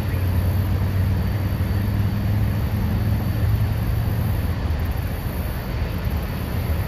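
Steady roar of the Horseshoe Falls and the rushing river rapids: a low rumble under an even rushing hiss, easing slightly about four and a half seconds in.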